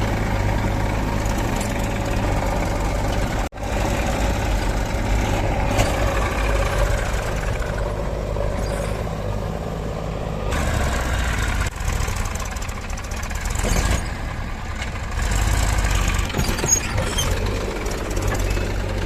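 Diesel engines of a backhoe loader and farm tractors running, the loader's engine rising and falling with load as it works. The sound cuts out for an instant about three and a half seconds in.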